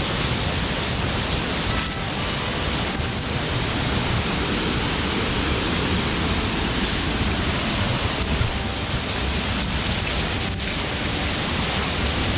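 Steady rush of a waterfall and its stream pouring over rocks.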